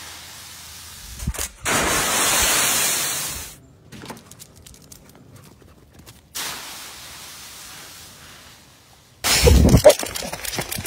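Dry autumn leaves rustling and crunching as a dog plunges through a raked leaf pile, in separate bursts that start and stop abruptly. About nine seconds in, a louder deep buffeting rumble with clicks takes over, wind and handling on a moving phone's microphone.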